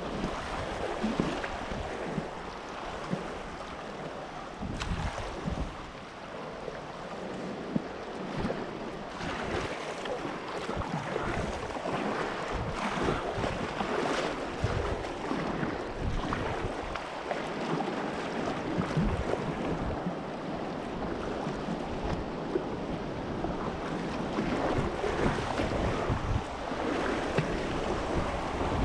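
River whitewater rushing and splashing steadily, with wind buffeting the microphone.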